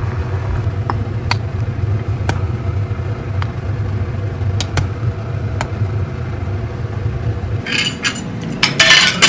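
Gas stove burner under a pot of doenjang jjigae at a rolling boil: a steady low rumble with a few sharp pops and clicks. The rumble cuts off abruptly near the end and gives way to brief, loud, crisp rustling and clatter at a plate of fried eggplant tempura.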